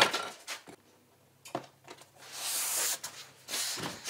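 Hands pressing and rubbing a self-adhesive LED light strip onto a polycarbonate sheet. A sharp click and a few taps come first, then a rubbing hiss about two seconds in and again shortly before the end.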